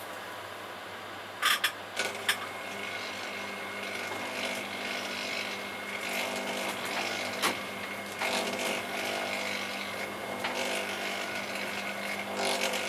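Electric potter's wheel motor running with a steady whine, starting after a couple of clicks about two seconds in and stopping near the end, with clay being rubbed as the jar turns.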